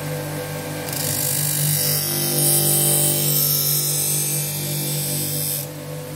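Tormek sharpener's motor humming steadily while a folding-knife blade held in a jig is honed on its diamond-charged paper wheel: a bright hiss from about a second in that stops near the end as the blade is lifted off.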